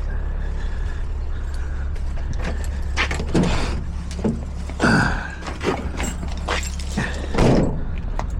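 Several clunks and knocks from a van door and gear being handled, the loudest about five seconds in and near the end, over a steady low rumble.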